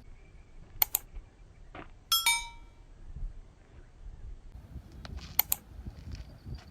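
Sharp clicks in two quick pairs, about a second in and near the end, and a short ringing metallic clink just after two seconds, over a low rumble.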